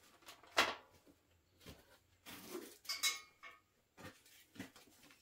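Plastic bags of small metal hardware and brackets being handled and set down: crinkling plastic with a few light metallic clinks, the clearest a short ringing clink about three seconds in.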